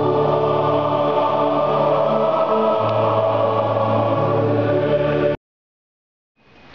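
Choral music with long held chords, cutting off suddenly about five seconds in. After a second of silence, a faint rushing noise begins to rise near the end.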